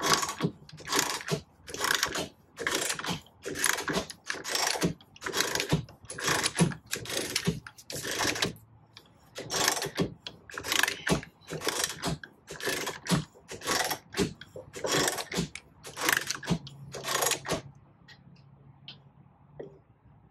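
Ratchet wrench clicking through repeated back-strokes, about two a second, as it runs down and tightens the impeller nut on the jet pump shaft. There is a short pause about nine seconds in, and the clicking stops about eighteen seconds in.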